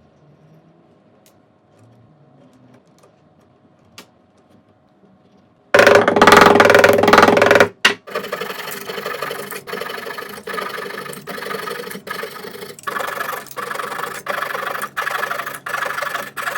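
Wood being rasped or sanded by hand in repeated back-and-forth strokes, about two a second, from about eight seconds in. Before that, a louder, denser two-second stretch of the same working starts suddenly about six seconds in, after a quiet start.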